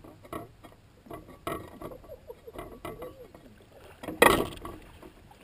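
Handling noises on a small aluminium boat: scattered knocks and rattles, then one loud thump about four seconds in.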